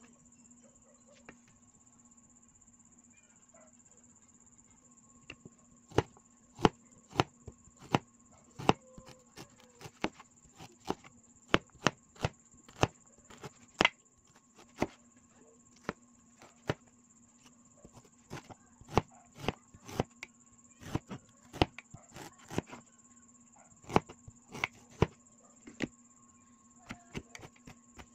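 Cleaver-style knife chopping fresh ginger root on a plastic cutting board: sharp, irregular knocks of the blade on the board, about one or two a second, starting about six seconds in.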